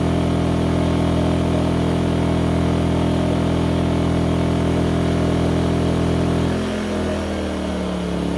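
Firman W01682 inverter generator running steadily at high engine speed under a load of about 1,700 watts; about six and a half seconds in, its engine note glides down over a second or so and settles lower, as the inverter slows the engine to match a reduced load.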